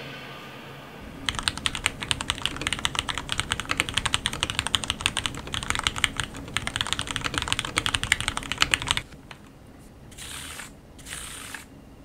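Fast typing on a mechanical keyboard with removable keycaps, a rapid run of key clacks that starts about a second in and stops abruptly about nine seconds in. Two brief faint hisses follow near the end.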